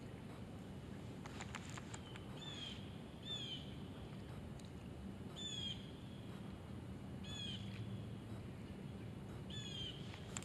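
A bird calling repeatedly: five short, high, downward-slurred notes, one every two seconds or so, over a faint low outdoor background.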